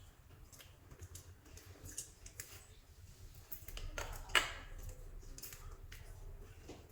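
Soft clay being squeezed and worked by hand, giving irregular small sticky clicks and crackles, with one louder crackle a little past the middle.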